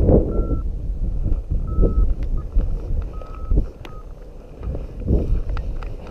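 Strong wind buffeting the microphone in gusts, a heavy low rumble that rises and falls. A short, steady electronic beep sounds several times at uneven intervals.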